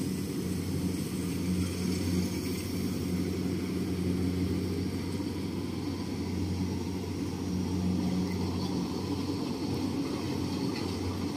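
Rice combine harvester's engine running steadily in the distance as it works the paddy field: a continuous low hum.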